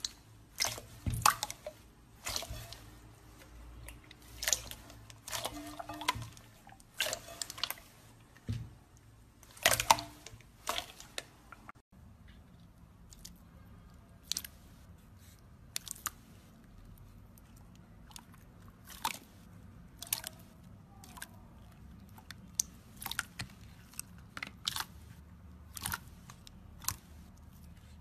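Hands squeezing and poking slime in a bowl, giving irregular sharp wet pops and crackles. The pops come in quick clusters at first, then turn sparser and single after a brief break about twelve seconds in.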